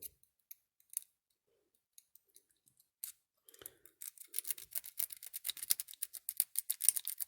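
Snake rake being rocked in the pin tumblers of a small five-pin Bunker Hill padlock against a tension bar. A few scattered clicks come first, then from about four seconds in a rapid run of small metallic clicks as the pins are worked.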